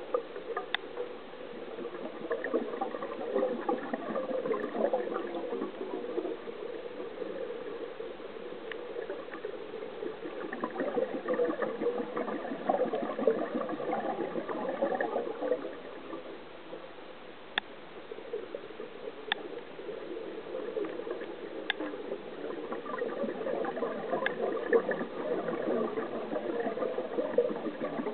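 Underwater bubbling from a scuba diver's exhaled air, gurgling in long swells roughly every ten seconds with quieter pauses between breaths. A few sharp clicks stand out, mostly in the second half.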